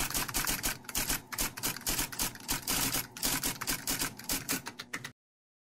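Typewriter keys striking in a rapid, uneven run of clicks, a sound effect for text being typed out. It stops abruptly about five seconds in.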